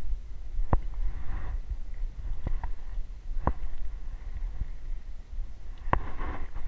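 Footsteps of someone walking a track of flattened reed stalks, with four sharp clicks and brief rustles spread irregularly through it, over a steady low rumble of wind on the microphone.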